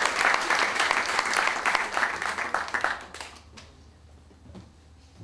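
Audience applause, a dense patter of many hands clapping, that dies away about three seconds in, leaving quiet room noise with a steady low hum.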